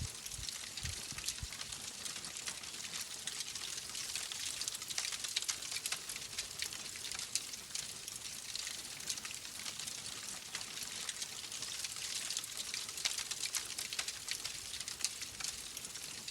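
Wood fire burning with dense, rapid crackling and snapping, steady throughout, with a few low thumps in the first second and a half.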